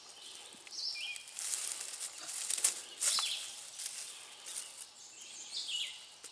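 Dry leaf litter and twigs rustling and crunching as the snake is handled and moved across the forest floor, loudest in the middle with a few sharp snaps. Woodland birds sing short high notes in the background.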